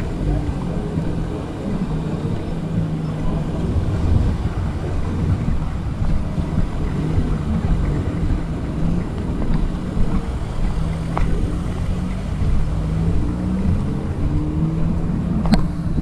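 A steady low rumble of engines going past, with wind on the microphone and a single sharp click near the end.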